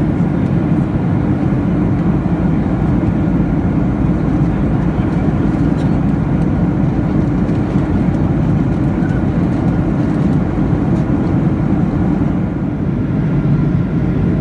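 Steady cabin noise of an airplane in flight: the even, low roar of engines and rushing air heard from inside the cabin.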